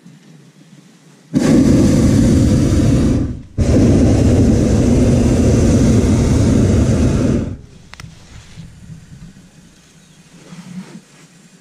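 Hot air balloon's propane burner firing in two blasts, about two seconds then, after a brief break, about four seconds more, each starting and cutting off sharply.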